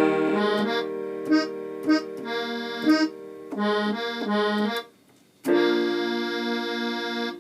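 Electronic keyboard playing held, organ-like chords with a moving bass line and a few accented notes, stopping briefly just before five seconds, then one long sustained chord: a gospel backing moving from the I (do) chord to the V (so) chord.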